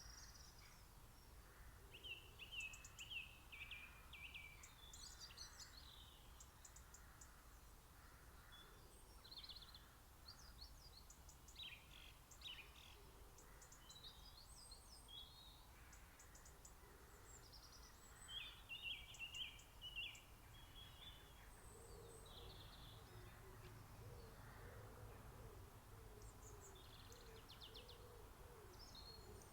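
Faint garden birdsong: several small songbirds trade short high trills and chirping phrases over a quiet background hiss. Past the middle, a wood pigeon joins in with low, repeated cooing.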